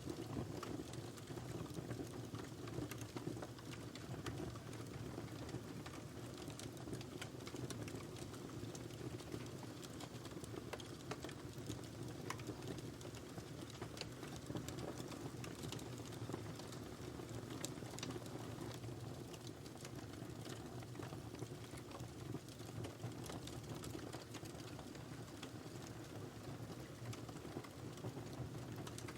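Wood fire burning in a fireplace: a steady low rush of flames with frequent small, irregular crackles and pops.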